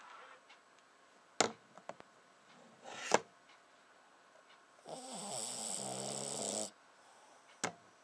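A flat-faced dog snoring: a shorter rising breath about three seconds in, then a long snore lasting nearly two seconds from about five seconds in, with a low rumble under a hiss. A couple of sharp clicks, at about a second and a half and near the end.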